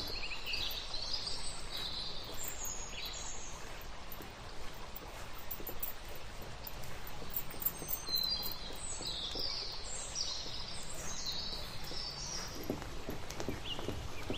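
Small birds chirping in quick short calls, in two spells (at the start and again past the middle), over a steady background hiss. Near the end there are a few soft scrapes, from a spatula stirring thick paste in an iron kadhai.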